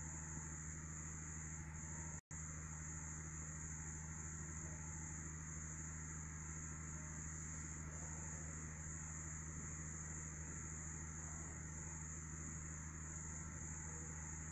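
Quiet background: a steady high-pitched whine or trill over a low steady hum, with no other sound standing out. It cuts out for an instant about two seconds in.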